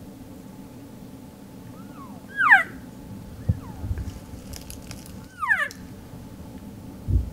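Cow elk mews: several short, high, squealing calls that fall steeply in pitch, the loudest about two and a half seconds in and again about five and a half seconds in. A dull thump comes near the end.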